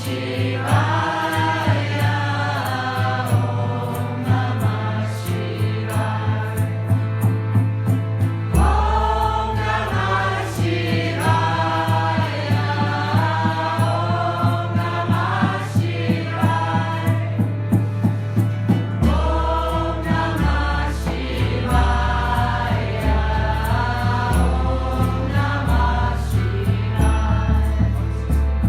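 Devotional chanting music: a group of voices singing a kirtan-style mantra in phrases over a steady drum beat, with the bass shifting lower about a third of the way through.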